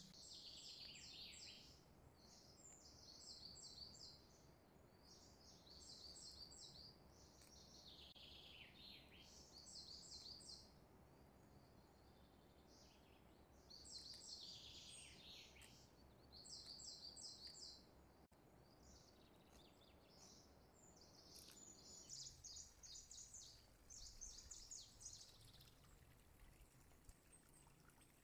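Faint birdsong: clusters of rapid, high chirps recurring every couple of seconds, some sweeping down in pitch, over a low steady hiss.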